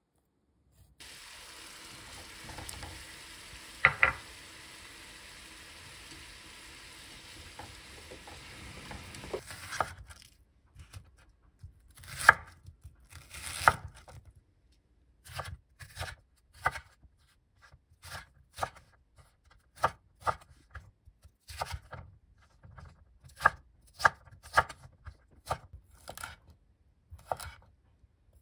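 Kitchen knife cutting food on a wooden cutting board. For the first ten seconds there is a steady faint hiss with a few soft cuts. After that comes an irregular run of sharp knife strikes against the board as onion and asparagus are chopped.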